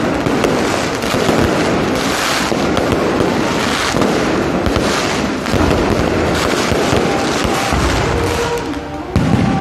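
Electronic fireworks barrage going off: dense, continuous crackling and popping from ground-fired fountains and crackling aerial stars, with a louder burst of bangs near the end.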